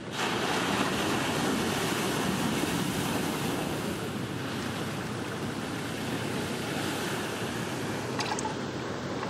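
A large ocean wave breaking over a reef, with steady heavy rushing of whitewater and surf heard from the water's surface. It eases a little after the middle, and a few short ticks come near the end.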